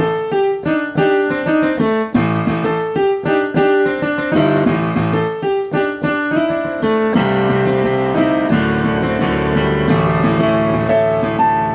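Instrumental break on electric piano: a quick run of struck chords and melody notes, giving way to longer held chords about seven seconds in.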